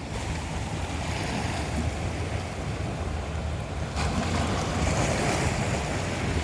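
Sea waves washing ashore with a steady low rumble and wind buffeting the microphone; a wave breaks more loudly about four seconds in.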